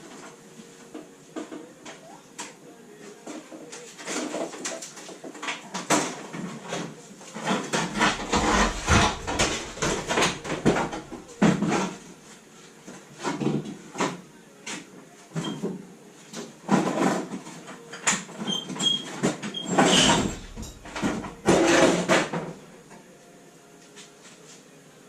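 Workshop clatter: irregular knocks, scrapes and clanks of tools and metal parts being handled, starting about four seconds in and stopping a few seconds before the end.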